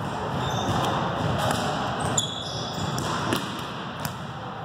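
Balls being struck and bouncing on a hardwood gym floor: a few sharp thumps over a steady din of a large hall.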